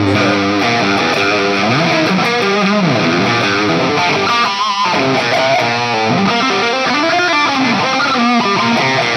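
Overdriven electric guitar through a digital amp-modeler preset, playing a lead line with wide string bends and vibrato, with a brief gap just before the middle.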